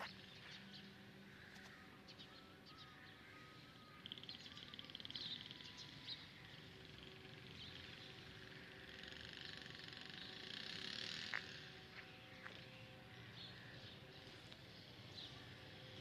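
Faint outdoor ambience: a low, even background hum with scattered faint bird chirps.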